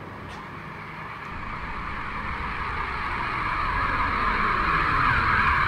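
Stunt scooter's wheels rolling over street pavement, a steady rolling rumble that grows louder as the scooter comes closer.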